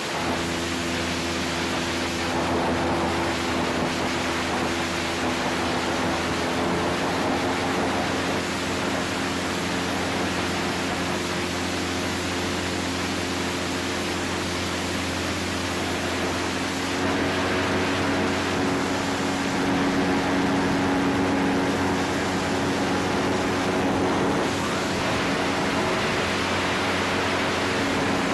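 Quicksilver ultralight's engine and propeller droning steadily in flight, with wind rushing past the open seat. The engine note shifts a little and grows slightly louder about two-thirds of the way through.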